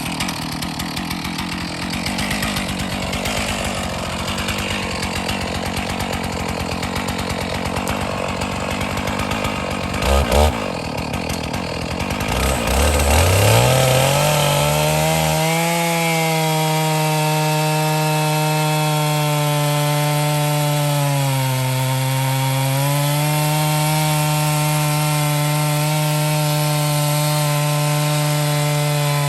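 Stihl MS461 two-stroke chainsaw mounted on a Granberg vertical mini-mill, running hard while ripping a log. It starts suddenly and rough; about halfway through the pitch climbs to a steady high note that dips briefly once.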